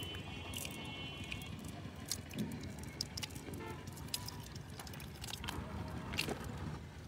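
Light rustling and scattered small clicks as a cast net is shaken out over dry mud and shells and small catch drop from it, over a steady outdoor background hiss. A short, steady high tone sounds in the first second and a half.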